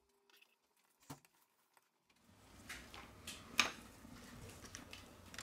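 Faint clicks and taps of a prying tool and fingers on the plastic middle frame of a Samsung Galaxy A20e as it is worked loose. One sharp click comes about a second in and the loudest about three and a half seconds in. A faint steady hiss comes in after about two seconds.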